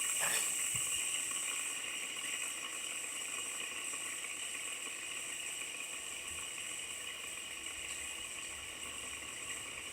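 Two fidget spinners whirring steadily on their ball bearings, a thin high hiss that slowly fades as they lose speed.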